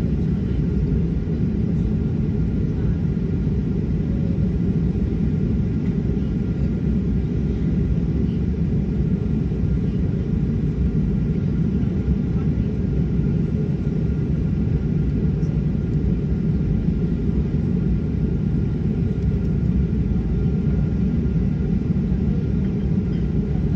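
Inside the cabin of a Boeing 737-800 taxiing: a steady low rumble from the CFM56 engines at idle and the rolling airframe, with faint steady whine tones above it.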